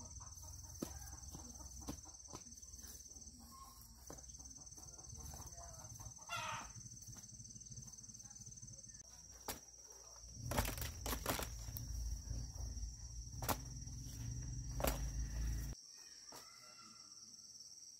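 Chickens clucking around a rural yard over a steady high-pitched drone. From about ten seconds in, several sharp knocks sound over a low rumble, which cuts off suddenly near the end.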